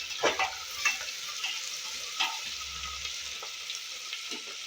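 Chopped onion, green chilli and cumin sizzling in hot mustard oil in a pressure cooker while being stirred. A few sharp knocks come as the stirring spoon strikes the pot.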